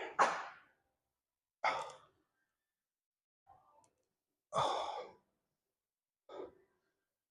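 A man exhaling hard in a series of heavy sighs, about five breaths a second or so apart, the later ones fainter.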